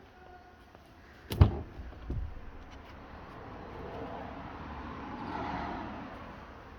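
A car door shutting with a solid thud about a second and a half in, with a lighter knock just after it. A broad rush of noise then swells and fades away.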